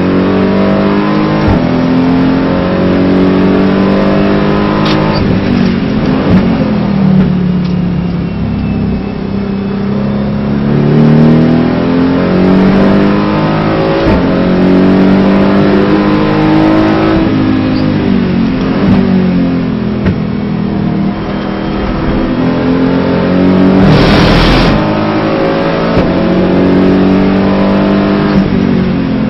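Aston Martin GT4 race car's engine heard from inside the cockpit at racing pace: the revs climb in each gear and drop sharply at each gear change, then climb again. A brief burst of noise cuts through about 24 seconds in.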